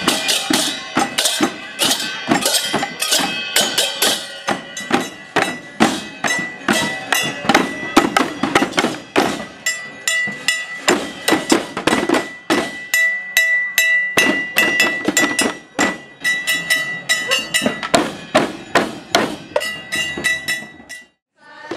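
Balinese tek-tekan percussion ensemble: bamboo kentongan tubes, small hand cymbals (ceng-ceng) and drums struck together in a fast, dense rhythm, with a steady high ringing tone running through it. It stops abruptly near the end.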